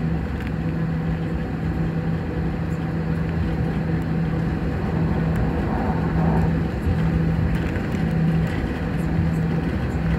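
Steady cabin noise inside an Airbus A320 taxiing after landing: the engines at idle and airflow, with a low steady hum that drops out briefly a few times.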